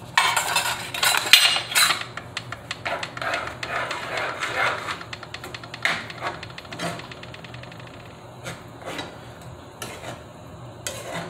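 A spoon stirring and scraping ground beef in sloppy joe sauce in a skillet, knocking against the pan. The clatter is busiest in the first half and thins to occasional single knocks.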